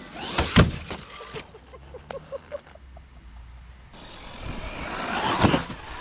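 RC car's motor whining and rising in pitch as it speeds toward a jump ramp. There is a loud knock about half a second in, and scattered clicks and knocks through the middle.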